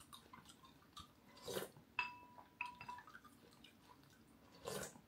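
Close-up eating sounds of sipping and chewing from a spoon, twice. About two seconds in, a spoon clinks against a glass bowl and rings briefly, followed by a couple of lighter taps.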